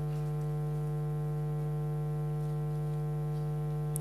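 Steady electrical hum: a low tone with a ladder of higher, fainter tones above it, unchanging throughout, with a short click near the end.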